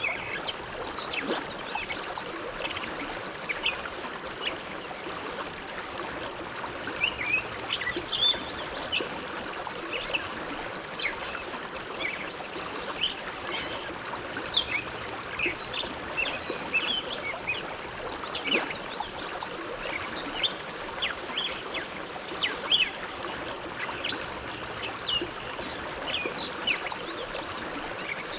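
The Bow River flowing, a steady rush of water, with many short, high bird chirps scattered throughout.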